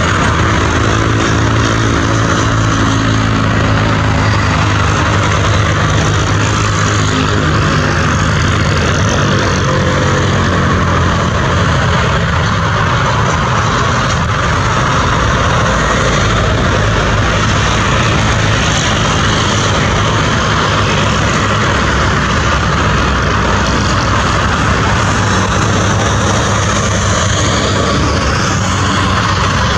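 Boeing 767-300 freighter's twin jet engines running at taxi power: a steady, loud rumble and whine. A set of low tones slides gently down in pitch over the first ten seconds or so.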